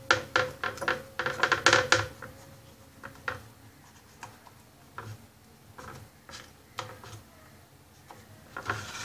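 A kitchen knife clicking and scraping against a serving platter as it scores lines into half-set jaggery and peanut brittle. A quick run of sharp clicks comes in the first two seconds, then scattered single clicks.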